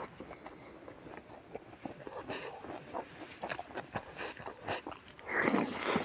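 Close-up chewing and mouth sounds of a man eating rice and smoked pork by hand: many small irregular wet clicks and smacks, with a louder rasping sound in the last second.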